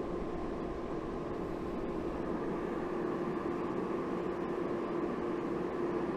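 Gas forge running: a steady rushing noise with a constant low hum.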